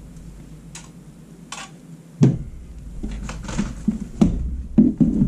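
Knocks and taps of objects being handled and set down on a desk, a drinking glass set down among them; the loudest knocks come about 2 and 4 seconds in, with a quick cluster near the end.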